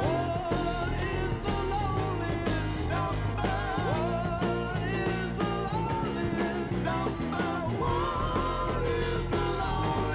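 A rock song with a lead singer and full band, played from a vinyl LP on a 1958 Collaro F-200C record changer and taken directly from its original Electro-Voice 26 cartridge rather than through a microphone.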